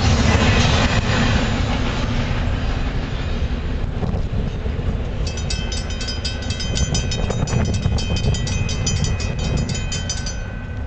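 Last cars of a double-stack container train rumbling and clattering past, then fading as the train pulls away. About five seconds in a grade-crossing bell rings out, struck several times a second, and stops near the end as the crossing clears.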